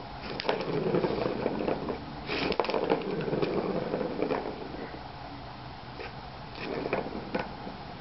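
A kitten batting the ball around the plastic track of a Turbo Scratcher cat toy: the ball rolls and rattles along the track in four short spells, with knocks of paws against the plastic.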